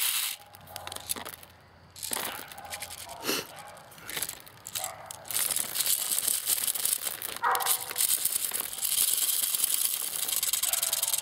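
Plastic airsoft BBs rattling out of a magazine as it is shaken inside a plastic zip-lock bag, with the bag crinkling. Scattered clicks and crinkles at first, then a steady dense rattle of pouring BBs from about five seconds in.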